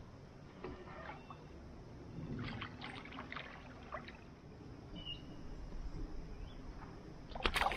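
Water splashing beside a kayak on a river in a few short bursts: about a second in, again between two and three seconds in, and loudest near the end.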